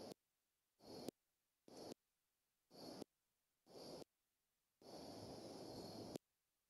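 Faint outdoor hiss from the nest camera's microphone, cutting in and out in short bursts about once a second. Each burst ends in a click and drops to dead silence between. A longer burst of about a second and a half comes near the end.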